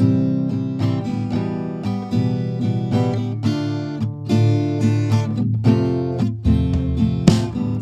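Background music: an acoustic guitar playing a plucked and strummed tune, the notes changing every fraction of a second.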